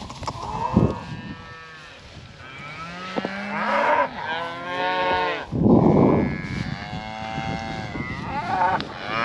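Cattle mooing: several calls in a row, some long and overlapping, with a short loud breathy huff a little past halfway.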